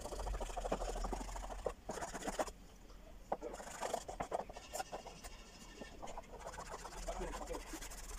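Fingertips rubbing and scraping across a rough, flaking paper-like surface taped to a board, rubbing away its top layer: quick, irregular dry scratching strokes that ease off for a moment about two and a half seconds in, then carry on.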